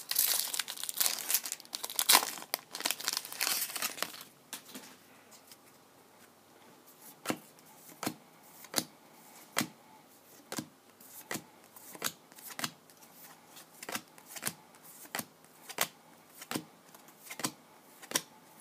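Foil wrapper of a trading-card pack torn open and crinkling for the first few seconds. Then a short click a little more than once a second as the chrome cards are slid one by one off the stack.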